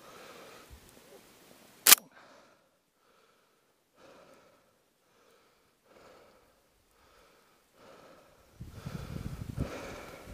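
A single sharp click about two seconds in. Then faint soft rustles about once a second, and near the end louder crunching and brushing as someone pushes through snow-covered brush.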